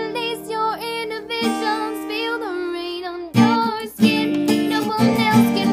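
A young woman singing a held, gliding vocal line over her own strummed acoustic guitar. The strumming comes in louder and fuller a little past halfway.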